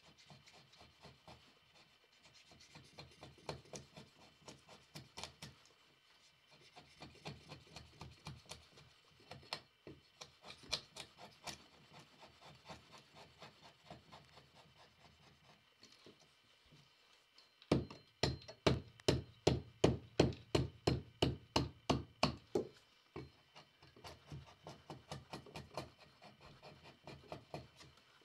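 Axe blade paring and scraping wood from the underside of a log in short, repeated strokes. About two-thirds of the way through comes a run of harder, quicker strokes, about four a second, lasting some five seconds, before the strokes go lighter again.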